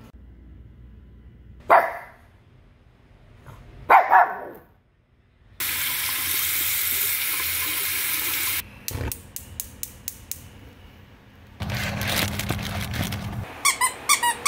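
Water from a faucet running over a knife blade into a sink for about three seconds. Near the end a plush toy bone is squeezed several times in quick succession, squeaking. Two short, louder sounds stand out earlier against a quiet background.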